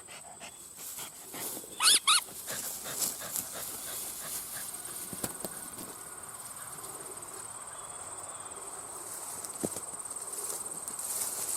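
A dog gives two short, high yelps about two seconds in. A steady high trill and light rustling continue underneath.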